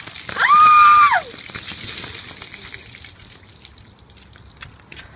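Ice water pouring and splashing down over a person, fading out over about three seconds and leaving faint drips. About half a second in, a woman gives a high, sustained shriek lasting about a second from the shock of the cold.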